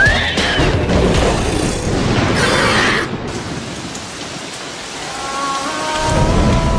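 Cartoon thunderstorm sound effects: heavy rain with a rumble of thunder, loudest for the first three seconds and then dying down. Music with held notes comes in about five seconds in.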